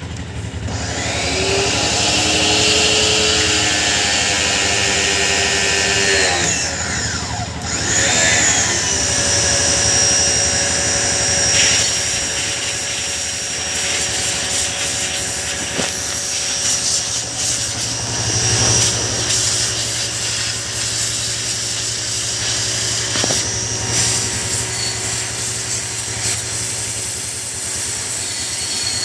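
Pressure washer running, its jet spraying onto a motorcycle drive chain and sprockets: a steady motor-and-pump hum under a loud spray hiss. The pitch sweeps and shifts about seven seconds in.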